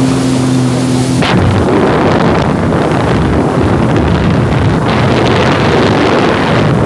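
Supercharged Sea-Doo GTX personal watercraft running at speed: a steady engine tone for about the first second, then a sudden crack as wind and spray hit the microphone. After that, loud rushing wind and water spray from the hull.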